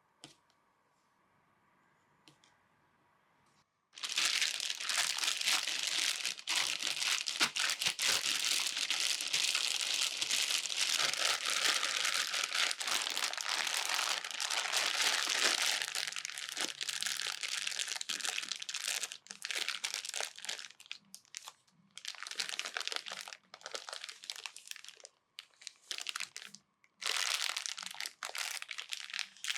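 Dense crinkling and rustling that starts suddenly about four seconds in, runs without a break for about twelve seconds, then comes in shorter bursts with brief gaps.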